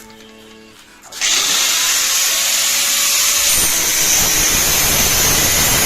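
A power grinder starts about a second in and grinds steadily on the metal quick-release end cap, a loud, even, hissing whine.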